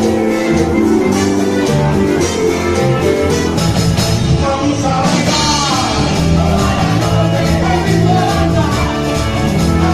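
A rock band playing, with guitar over a bass line and drums.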